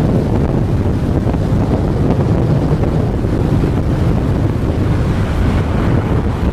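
Strong typhoon wind buffeting the microphone: a loud, steady rumble of wind noise.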